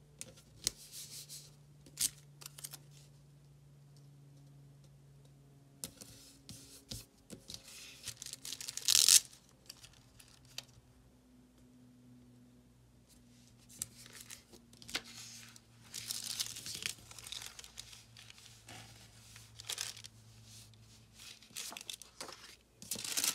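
Stickers being peeled and pressed onto paper planner pages, with paper and plastic sheets rustling and crinkling. The sound comes in irregular bursts, the loudest about nine seconds in and at the very end.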